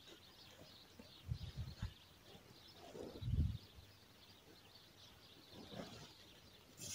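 Faint, soft rustles and bumps of hands handling a fishing rod's line and small jig hook close to the microphone, three times a couple of seconds apart, with faint bird chirps behind.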